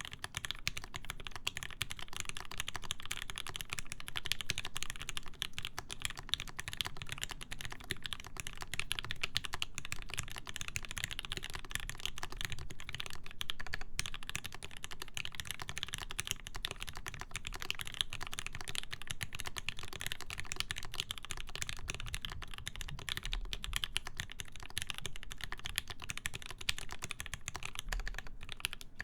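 Continuous fast typing on a Vulcan Majapahit ergonomic mechanical keyboard with lubed linear Gateron Ink switches, a full brass plate, foam dampening and GMK keycaps. It makes a dense, steady stream of keystrokes with a brief pause about halfway through.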